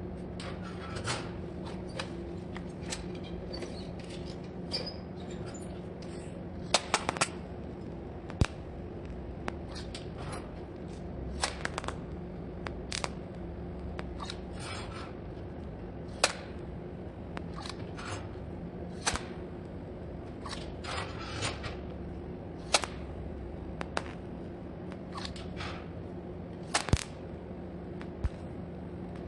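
Irregular sharp metal clicks and clinks of small parts being handled and set down, about one every second or two, over a steady low hum.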